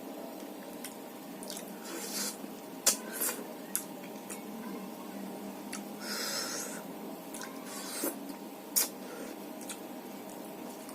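Wet eating sounds: squishing and smacking while chewing, with scattered sharp clicks and short bursts of noise.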